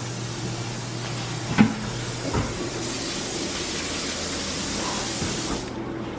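A steady hiss with a low hum under it, two light knocks about one and a half and two and a half seconds in, and the hiss cutting off abruptly near the end.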